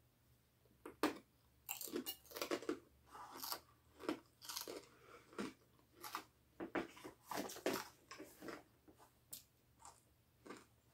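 Someone biting into and chewing a crisp pita chip topped with hummus: a run of irregular crunches starting about a second in.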